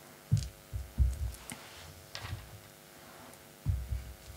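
Dull knocks and thumps as decorated glass bottle pumpkins are set down and shifted on a wooden slice board: one just after the start, a cluster around a second in, and another near the end. A faint steady hum runs underneath.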